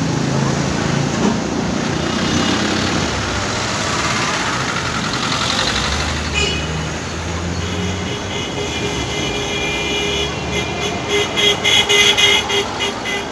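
Tram running past along street rails and pulling away, a steady rumble of wheels and running gear. About six seconds in, and again more loudly over the last three seconds, high-pitched pulsing tones ring out above the rumble.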